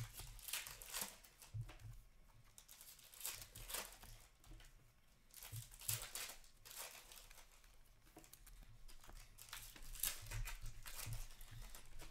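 Stiff hockey trading cards being flipped and slid against one another by hand: a run of short, irregular papery swishes and rustles, with some crinkling.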